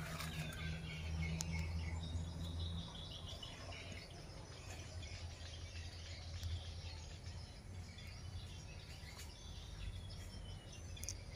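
Faint outdoor ambience of birds calling and insects chirping, with a low steady hum that stops about three seconds in.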